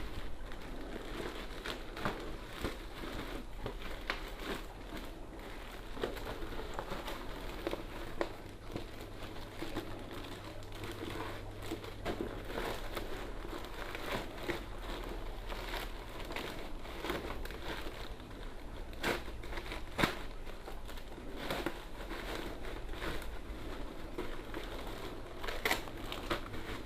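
Plastic packaging crinkling and crackling in irregular bursts as hands handle and tear open a parcel.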